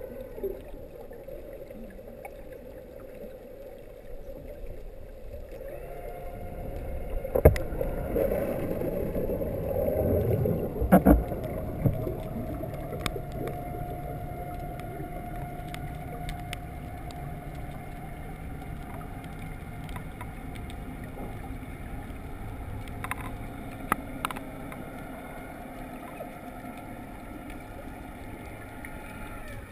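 Underwater recording through a GoPro dive housing: a diver propulsion scooter's electric motor runs with a steady whine over water rush. There are sharp knocks on the housing about 7.5 and 11 seconds in, and a few lighter clicks near the end.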